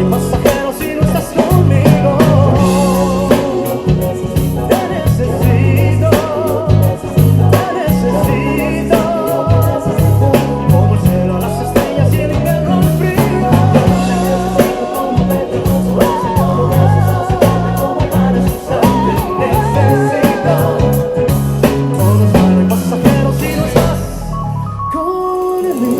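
A song with singing and drums over a prominent, steady bass line from a Ken Smith CR5 five-string bass guitar. About two seconds before the end the drums drop out and the music thins to held notes.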